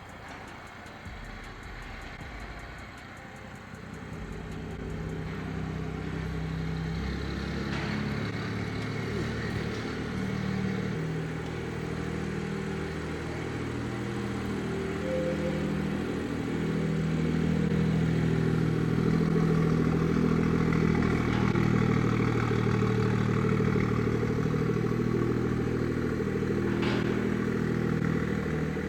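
Car engine running as the vehicle moves, a low drone that grows louder over the stretch.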